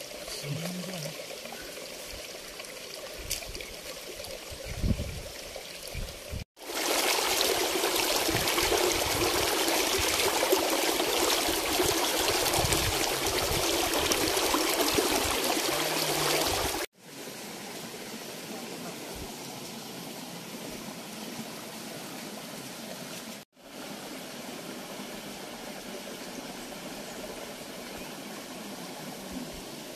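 A small rocky forest stream running, with water pouring and splashing between boulders. It is loud and close for about ten seconds in the middle, with quieter running water before and after, and cuts off and restarts suddenly between stretches.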